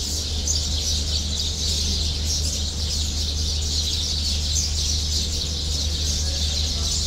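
Dense chorus of many small birds chirping continuously, over a steady low hum.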